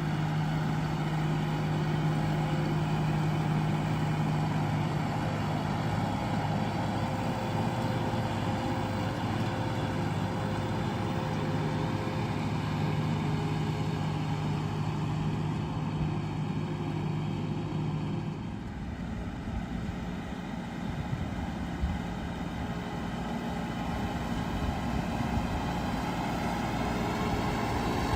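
Tractor engine running steadily while pulling a plow. About two-thirds of the way through its note changes and the sound eases for a few seconds, then it builds back up near the end.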